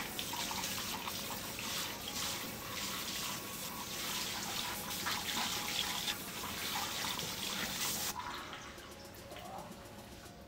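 Water spraying from a salon shampoo bowl's hand sprayer onto wet hair and splashing into the basin as shampoo is rinsed out. The water shuts off about eight seconds in.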